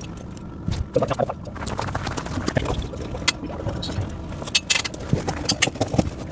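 Steel links of a pewag doppelspur tractor tire chain clinking and rattling as the chain is handled, with irregular metallic jingles and knocks throughout.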